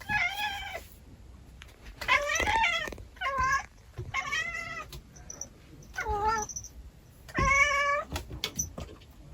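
Domestic cat meowing repeatedly: six drawn-out meows, roughly one every second or so.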